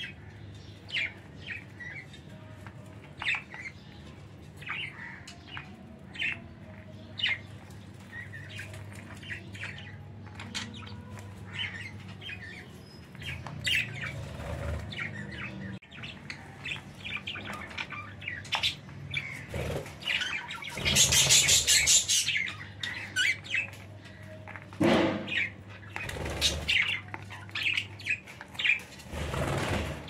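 Budgerigars chirping in short, scattered calls, with wing flapping: a loud flurry about two-thirds of the way in and more near the end as another budgie flies in.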